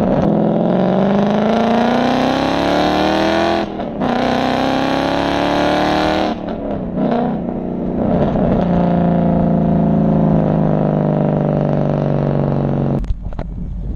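Loud exhaust of a 2013 Ford Mustang 5.0 V8 through a Corsa exhaust with off-road pipes, heard at the tailpipes under hard acceleration. The revs climb, drop sharply about four seconds in at a gear change, and climb again. After a rougher patch the note settles into a steady, slowly falling drone that cuts off near the end, leaving road and wind noise.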